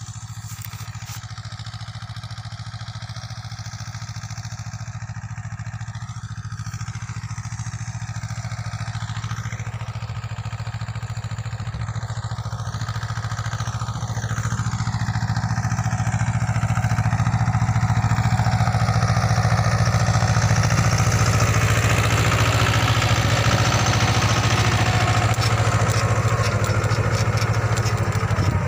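Mahindra Jivo compact diesel tractor engine running steadily while it pulls a seed drill, growing steadily louder as it comes closer and louder again about halfway through.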